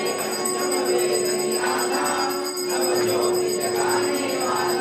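Bells ringing continuously over a steady held note, with music behind.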